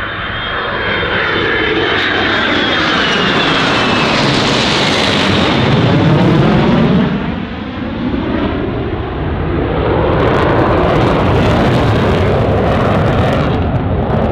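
A formation of military jet aircraft flying overhead at an airshow, its engine noise swelling as it passes with a sweeping, shifting pitch. It is loudest about six to seven seconds in, dips briefly, then holds loud again.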